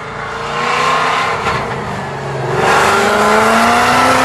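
Ford Coyote V8 of a 1948 Ford Woody wagon restomod accelerating hard, its engine pitch climbing in two pulls with a brief dip about halfway. The sound stops abruptly at the end.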